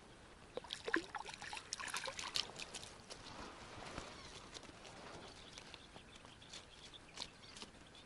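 Faint water splashes and drips from a small hooked crucian carp flipping at the surface: a quick flurry of small splashes about a second in, then only scattered ones.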